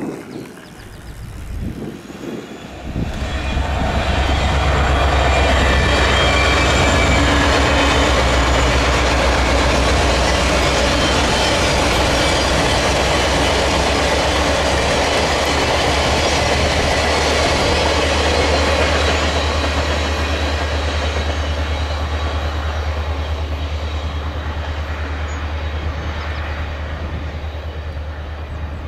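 Union Pacific #1111, an EMD SD70ACe diesel locomotive, passing with a train of passenger cars: a steady low diesel engine hum under the rumble and clatter of wheels on the rails. The sound builds about three seconds in and slowly fades toward the end as the cars go by.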